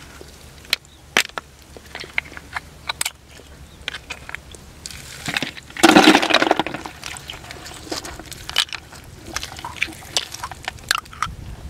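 Hands working through muddy shallow water, with scattered small clicks and knocks and one louder splashing slosh about six seconds in.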